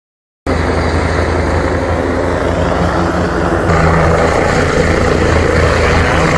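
Rescue helicopter flying low, a steady throbbing rotor noise that cuts in just after the start and grows louder a little past halfway.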